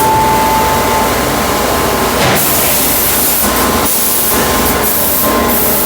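Loud hissing in the forge shop of a C92K hydraulic die forging hammer, starting and stopping several times over a steady machine hum, with no hammer blows.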